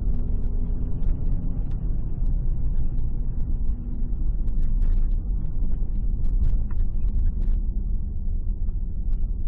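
Steady low rumble of a car's engine and tyres, heard from inside the cabin while driving, with scattered small clicks and rattles.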